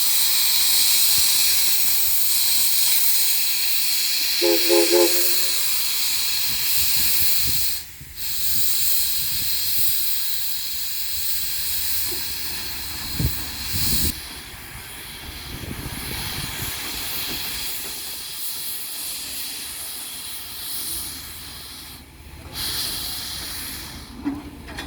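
Southern Railway 4501, a 2-8-2 steam locomotive, hissing steam steadily. A short pitched toot sounds about five seconds in; the hiss drops out briefly about eight seconds in and then carries on quieter.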